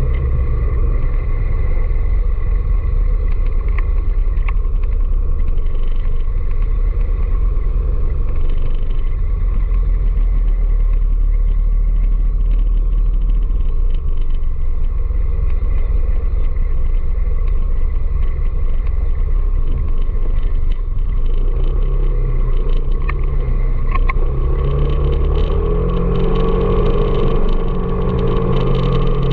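Steady low rumble of riding through city traffic, made of engine and road noise. Near the end an engine note comes up, rising and then falling.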